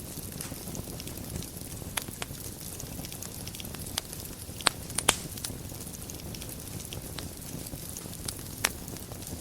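Wood fire burning in a fireplace: a steady low rushing of the flames with scattered sharp crackles and pops, the loudest a cluster of pops about five seconds in and another near the end.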